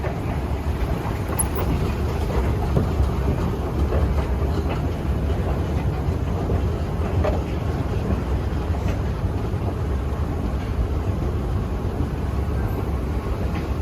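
Busy airport terminal concourse ambience heard while walking through it: a steady low rumble with irregular light clatter and no distinct single event.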